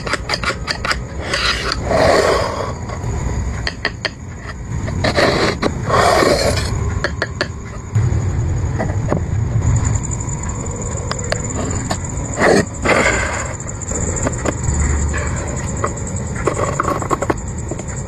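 Hand tools worked on wood: repeated sharp clicks and taps, with scraping strokes of about a second each, several times. A faint steady high tone comes in about halfway through.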